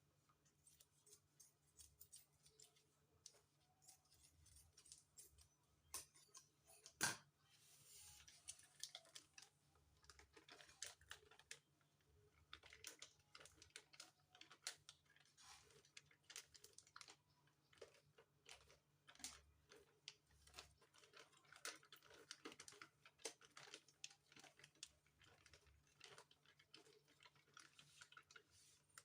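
Faint kitchen handling sounds: soft clicks and rustles of hands working chin chin dough of flour and margarine in a bowl, with one sharper knock about seven seconds in.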